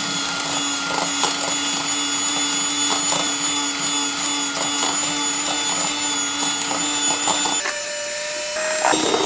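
Electric hand mixer running steadily, its beaters whisking egg yolks and sugar in a stainless steel bowl until pale. Near the end the motor hum drops out for about a second, then resumes at a higher pitch.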